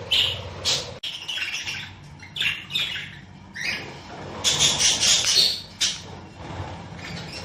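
A flock of budgerigars chirping and chattering, with short, irregular high-pitched calls and a louder cluster of squawky calls a little past the middle.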